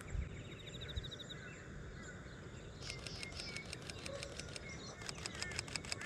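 Small birds chirping faintly over steady outdoor background noise. From about three seconds in come two quick runs of sharp clicks, about ten a second: a camera shutter firing in bursts.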